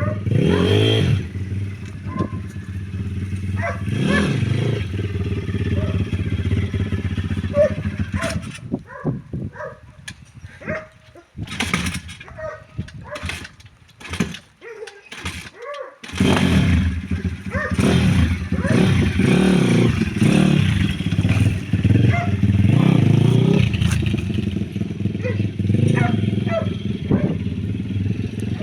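Pit bike's single-cylinder engine running unevenly. About a third of the way in it stumbles into separate stutters and gaps as though about to stall, then picks back up and is revved: a sign of the poor idle it has after 40.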